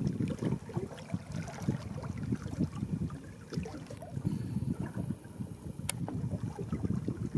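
Water slapping and lapping against the hull of a small fishing boat, with wind buffeting the microphone in uneven gusts. No motor tone stands out.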